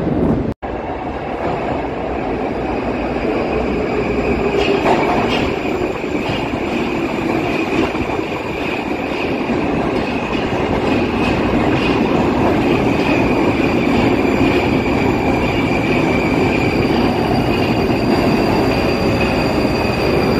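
Moscow metro train of the 81-775.2/776.2/777.2 'Moskva-2024' type moving along the platform: a steady rumble of wheels on rail with a thin, high, steady whine above it. The sound cuts out for an instant about half a second in.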